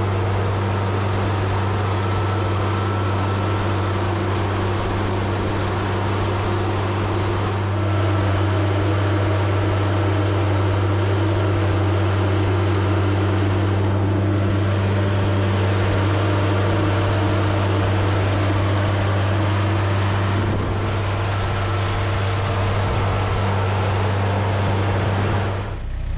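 TYM 474 tractor's diesel engine running steadily under load as the front loader bucket pushes into a frozen mound of earth and ice. The engine note grows slightly louder about eight seconds in.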